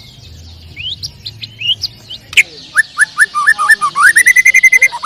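White-rumped shama (murai batu) singing: a few rising whistles, then from about halfway a fast run of varied notes and trills that is loudest near the end.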